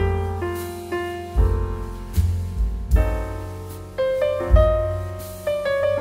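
Background piano music: a slow tune over low bass notes struck about every one and a half seconds, each note ringing and fading.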